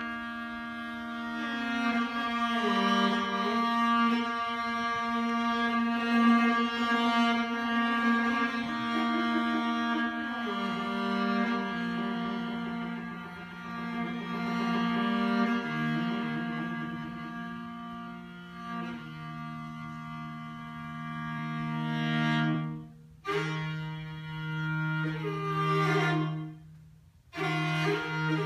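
Morin khuur (Mongolian horsehead fiddle) played solo with the bow: long held notes, a low note sustained under a slowly moving melody, with two short breaks in the last few seconds.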